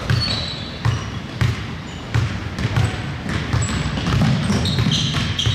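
Basketball bouncing on the gym floor, a series of irregular thumps from players dribbling, with short high squeaks from sneakers on the court, the clearest near the end.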